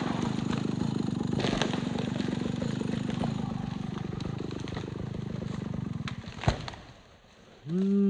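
Small two-stroke chainsaw engine idling with a steady rapid buzz, which stops about six seconds in and is followed by a sharp click. Near the end, a loud pitched sound rises in pitch.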